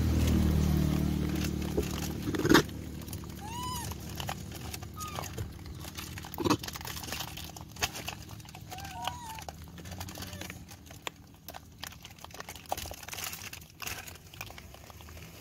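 Rhesus macaques foraging on stony ground: scattered rustling, crunching clicks of stones and food being handled, and a few short arched coo calls. A low rumble fades over the first couple of seconds, and a sharp knock sounds about two and a half seconds in.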